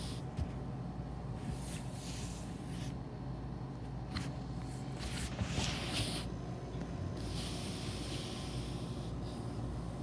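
Rustling and rubbing on the phone's microphone as it is handled and covered, with a few sharp clicks, over a steady low hum.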